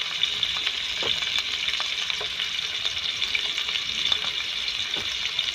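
Food frying in hot oil in a pan: a steady crackling sizzle with scattered small pops.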